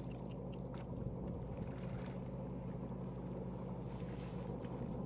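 Tractor engine running steadily during the rice harvest, a constant low drone, with a few faint ticks over it.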